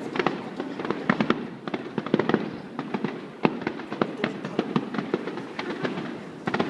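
Aerial fireworks display: a rapid barrage of shell bursts and crackling pops, several sharp reports a second with no break.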